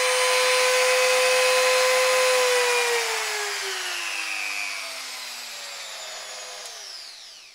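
INGCO mini die grinder (handheld rotary tool) motor whining steadily at top speed. About two and a half seconds in, the whine starts sliding down in pitch and fades as the motor winds down, dying away near the end.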